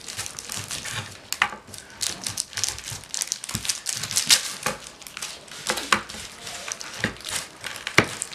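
Kitchen knife cutting through a strip of white almond nougat on parchment paper over a plastic cutting board: the paper crinkles and rustles, with irregular clicks and taps as the blade goes through and meets the board.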